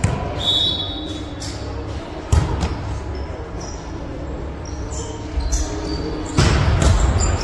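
Indoor volleyball play: sharp slaps of hands striking the ball, about two seconds in and again near the end, with short squeaks of shoes on the hardwood gym floor and players' voices, echoing in a large hall.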